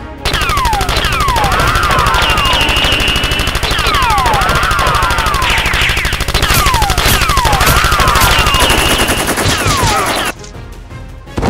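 Sound effect of rapid automatic gunfire, a dense run of shots with repeated falling whistles over it, lasting about ten seconds and cutting off suddenly near the end.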